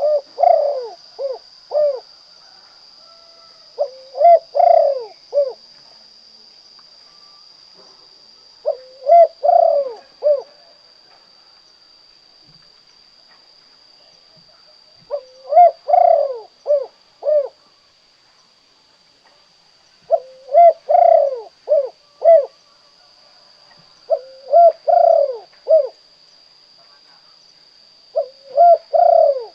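Spotted dove (tekukur/derkuku) cooing its 'kuk 2' type song: seven phrases a few seconds apart, each a longer opening coo followed by a few short clipped notes. A faint steady high tone runs beneath.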